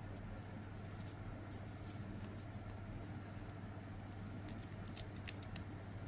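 Faint metallic ticking and scraping of a mountain rake worked in a padlock's keyway against a tension wrench, a little busier about five seconds in, over a steady low hum.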